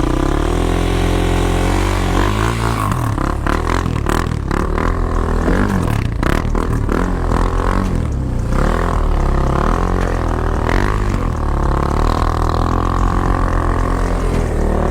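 ATV engine revved up and down again and again, with some clattering knocks: a quad working to break free of deep snow.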